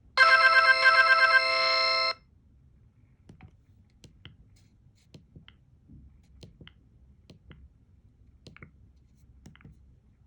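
Motorola RAZR V8 ringtone playing through the phone's speaker: a short electronic melody of quick repeated notes ending on a held chord, cut off abruptly after about two seconds. Faint scattered clicks follow.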